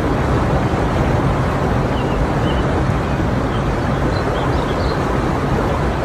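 Steady rush of flowing water, with a few faint bird chirps.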